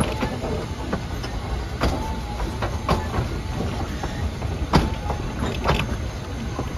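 East Broad Top narrow-gauge train rolling slowly on jointed track: a steady low rumble of wheels and running gear, broken by sharp metallic clanks at uneven gaps of about a second.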